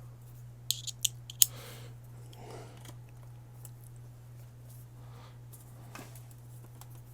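A quick cluster of four or five sharp clicks about a second in, small tools and screws being handled on the workbench, over a steady low hum.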